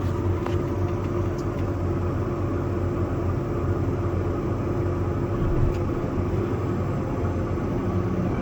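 Tractor engine running steadily with a low drone and a steady hum above it, while the bale stacker's hydraulics run its automatic reset, pivoting the hitch back and lowering the bed.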